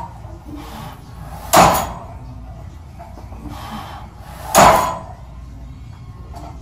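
Sounds of a bench press on a Smith machine: two loud, sharp bursts about three seconds apart, each with a fainter sound just under a second before it.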